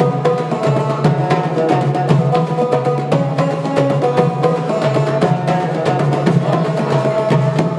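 Live Moroccan folk music: a banjo plays a melody over several hand drums, small paired drums and a goblet drum, beating a fast, steady rhythm.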